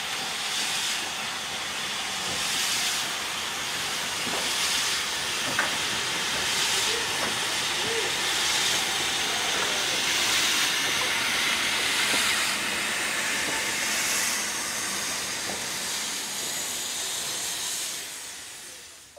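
Steam locomotive hissing steam: a steady hiss that swells about every two seconds, then cuts off near the end.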